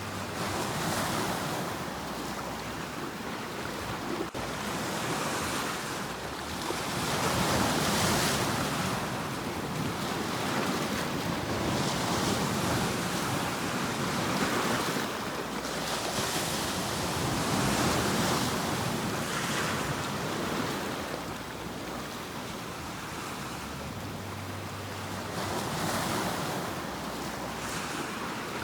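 Ocean waves breaking and washing on a shore, the surf swelling and falling back every few seconds.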